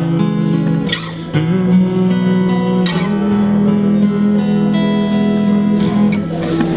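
Acoustic guitar strummed in slow chords, each left to ring, with a new chord struck a few times.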